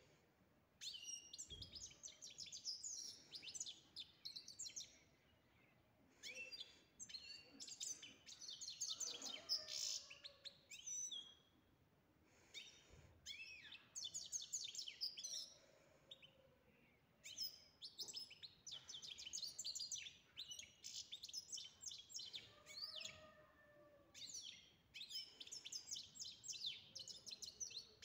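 Caged goldfinch singing: bouts of rapid, high twittering and trilled phrases a few seconds long, separated by short pauses.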